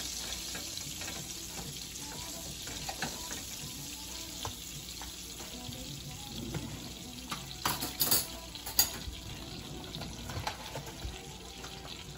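Butter melting in hamburger grease in a frying pan, a steady sizzle with scattered small pops, stirred with a fork at first. A few sharp clicks come about eight seconds in.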